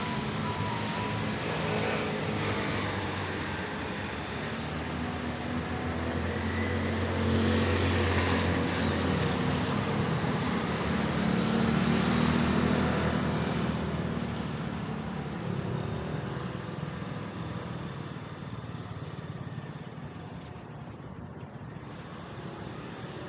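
Street traffic: a motor vehicle's engine and tyre noise swelling as it passes close, loudest around the middle, then fading away.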